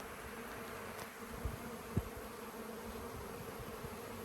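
Honeybees buzzing in a steady hum from an opened hive of a very strong colony, with a couple of soft knocks about one and a half and two seconds in.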